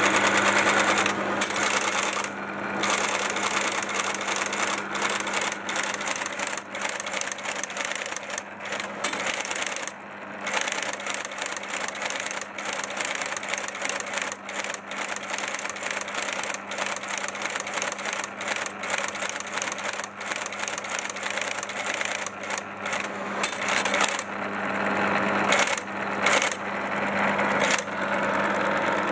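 The Friden Flexowriter console of an LGP-30 valve computer typing out results: a fast, continuous clatter of typebars striking, broken by a few short pauses, over a steady low hum from the running machine.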